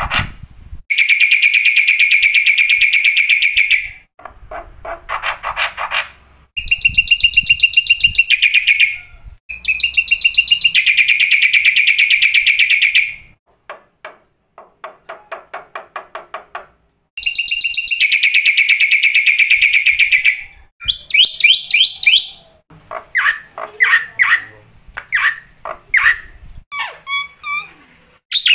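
Black-winged myna (jalak putih) singing: four long rattling trills of two to three seconds each, alternating with runs of short, varied chirps and whistles.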